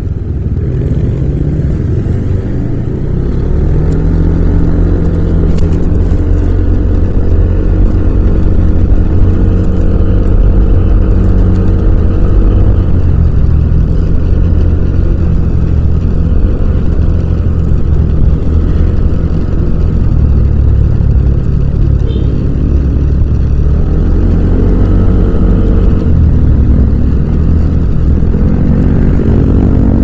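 Yamaha Aerox 155 scooter's single-cylinder four-stroke engine running under way, heard from the rider's seat, its revs rising and easing several times as the scooter speeds up and slows in traffic.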